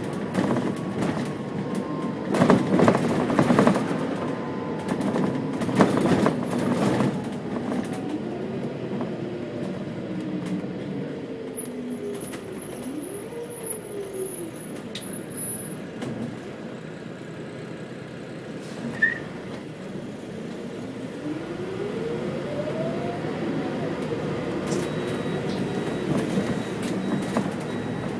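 City bus heard from inside: body and interior rattling loudly while driving, then a falling drivetrain whine as it slows to a stop. It idles at a red light, then pulls away with a rising whine.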